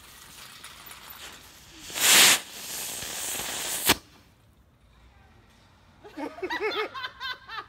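A lit firework hissing, surging into a loud rushing hiss about two seconds in and ending in a single sharp bang just before four seconds.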